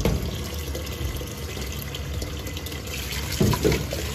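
Cold tap water running into a steel pot of cooked somen noodles in a stainless steel sink, a hand swishing the noodles to cool them. Two brief louder thumps about three and a half seconds in.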